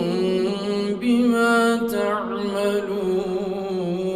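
A man's voice reciting the Quran in melodic tajweed, drawing the end of a verse out into long held notes with ornamented pitch turns.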